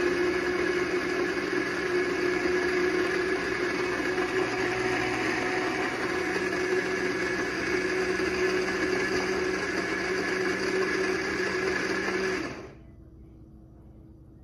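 Almond Cow milk maker's motor running steadily as it blends cashews and water into milk, then cutting off suddenly near the end.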